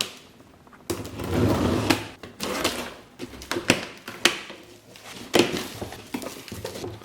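A cardboard packing carton being opened and its packaging handled by hand: irregular rustling and scraping with several sharp clicks and knocks.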